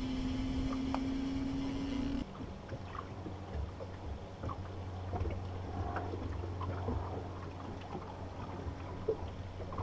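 Small fishing boat on a lake: a steady motor hum that cuts off abruptly about two seconds in. A quieter low hum follows, with faint scattered ticks.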